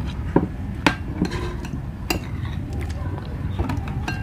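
Cutlery clinking against dishes: five or six light, irregular clinks, some leaving a short ring.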